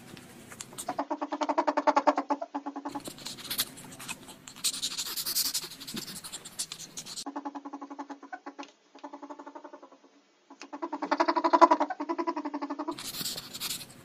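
A small mammal's rapid, pulsing purr-like calls, heard in three stretches, with bursts of hiss-like noise between them.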